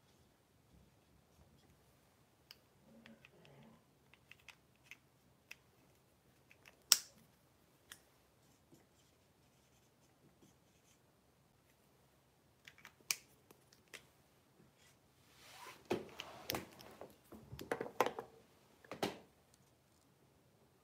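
Quiet room with scattered faint clicks and small handling noises, a sharp click about seven seconds in, and a denser run of louder knocks and rustles near the end.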